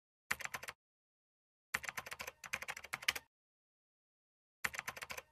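Keyboard typing sound effect: rapid key clicks in three bursts, a short one, a longer run of about a second and a half, and a third starting near the end, with dead silence between them.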